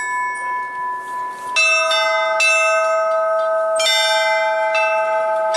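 Belfry bells struck one after another, about five strikes at differing pitches, each ringing on and overlapping the next in a simple tune.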